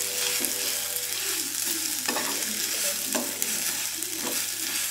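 Sausage pieces sizzling in a frying pan while a metal spatula stirs them, with two sharp clicks of the spatula against the pan about two and three seconds in.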